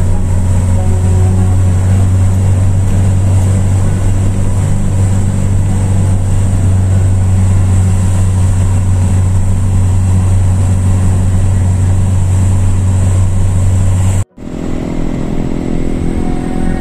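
Bus engine and road noise heard inside the cabin on a climbing mountain road: a loud, steady low drone. About fourteen seconds in it cuts off abruptly, then resumes with a different engine sound and a faint rising whine.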